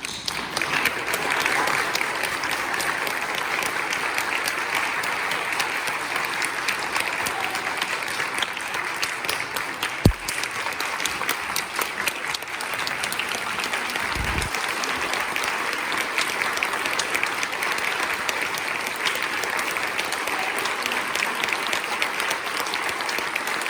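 Congregation applauding steadily, with one sharp knock about ten seconds in and a brief low thump a few seconds later.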